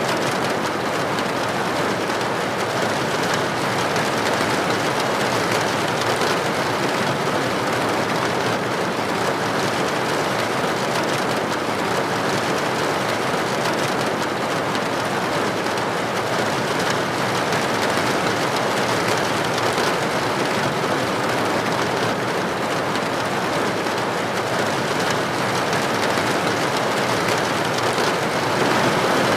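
Steady rain falling, a dense even hiss of drops with no breaks.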